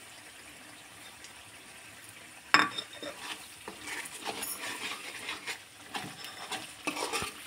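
Steel spoon stirring dried fenugreek leaves into masala frying in oil in a metal kadai, with a light sizzle. About two and a half seconds in the spoon strikes the pan with a sharp clink, and irregular scraping and clinks follow.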